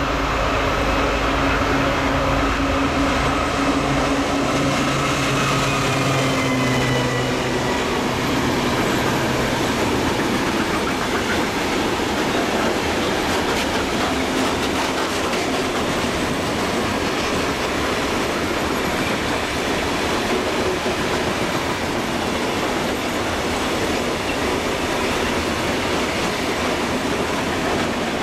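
A freight train passing close by. Over the first several seconds the locomotive's steady drone and a falling whine fade away. Then a long run of covered hopper wagons rolls past with a steady rumble of wheels on rail and occasional clicks over the rail joints.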